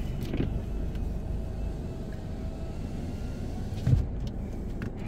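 Low steady rumble of a car heard from inside its cabin, with a single sharp knock about four seconds in.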